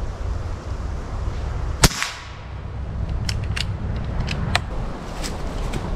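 A single shot from a Umarex Origin .22 PCP air rifle, a sharp crack about two seconds in, followed a little later by several light clicks. Wind rumbles on the microphone throughout.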